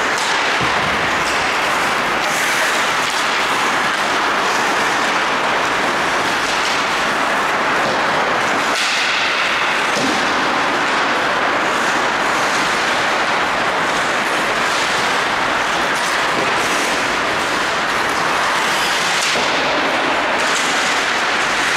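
Loud, steady rink noise during an ice hockey game, with many short sharp sounds scattered through it.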